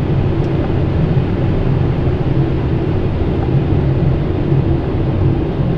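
Steady flight-deck noise of a Boeing 777 freighter on short final: a constant rush of airflow and engine noise with a low hum underneath.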